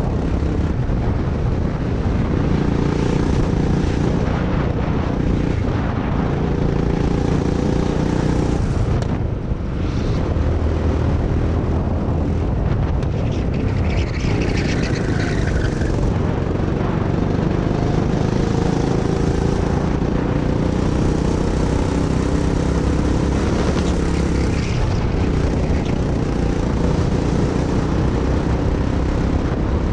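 Go-kart's small petrol engine running hard, heard from on board the kart, its note rising and falling with the throttle through the corners and dipping briefly about nine seconds in. About halfway through, a short high squeal falls in pitch over the engine.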